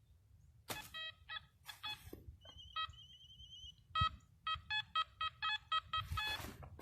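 Metal detector giving a string of short electronic beeps of changing pitch, with a brief warbling tone near the middle: the detector responding to a buried metal target. A few short scraping noises are mixed in.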